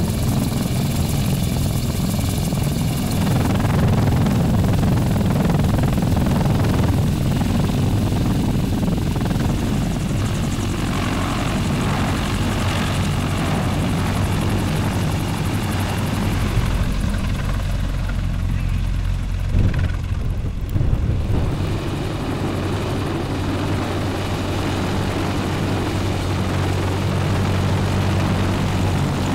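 Sikorsky CH-53E Super Stallion, a three-engine heavy-lift helicopter, running close by: a steady, loud, low rotor and engine noise as it hovers low over the ground and flies off.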